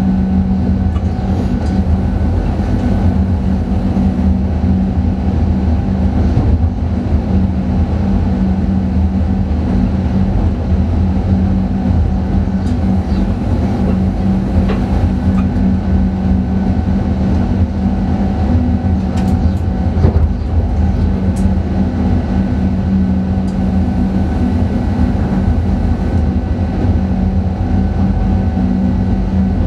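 Train running steadily along the track, heard from inside the driver's cab: a constant low hum and rumble, with a few light clicks around the middle.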